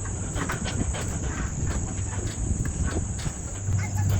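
A steady, high-pitched insect chorus, with scattered light clicks and knocks over a low hum.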